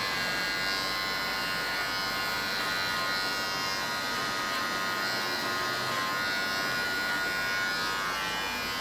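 Electric hair clippers running with a steady buzz while shaving the sides and back of a head down to zero.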